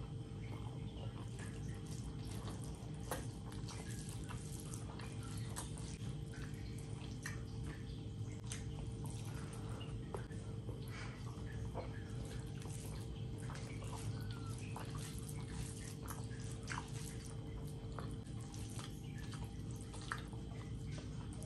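Close-miked wet chewing and lip-smacking of a mouthful of rice and curry, with soft squelches of fingers mixing rice on the plate: many small wet clicks scattered over a steady low hum.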